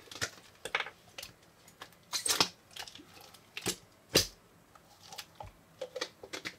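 Purple putty being worked out of a small plastic container by hand and pressed onto a pile of slime on a glass tabletop: irregular sticky clicks, smacks and taps, the loudest between about two and four seconds in.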